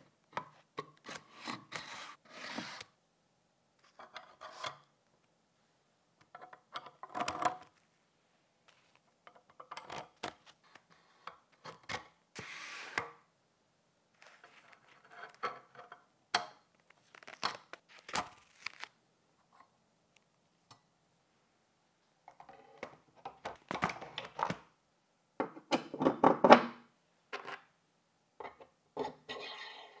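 Handling noises from assembling a 3D-printed plastic PC case frame on steel rods and aluminium corner blocks: bursts of rubbing and scraping with sharp clicks as parts are slid and pushed into place, separated by silent gaps.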